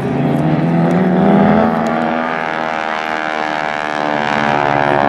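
Single-engine radial-engined trainer of the T-6 Texan type flying past in an airshow pass, its engine and propeller giving a steady drone whose pitch sinks slightly as it goes by.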